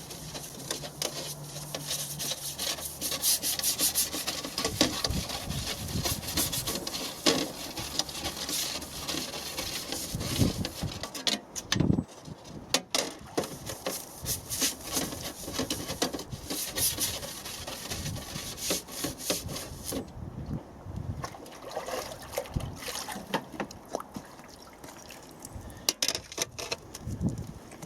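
Repeated rubbing and scraping strokes, irregular and fairly quick.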